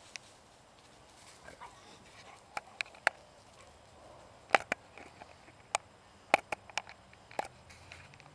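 A large building fire popping and cracking: about a dozen sharp cracks at irregular intervals, the loudest past the middle, over a faint steady background noise.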